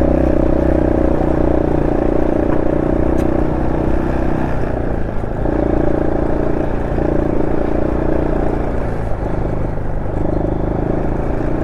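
Honda SL230's single-cylinder four-stroke engine, fitted with an aftermarket muffler and a re-jetted carburettor, running under way. Its note dips briefly a few times and picks up again as the throttle is eased and reopened.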